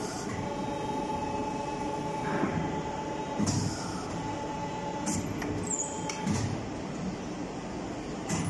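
CNC tube bending machine (DW38CNCX4A-3S, hydraulic, three-stack head) working a tube through a bend: a steady mechanical hum with a thin whine, broken by a few short clacks and hisses as the clamps and bending head move.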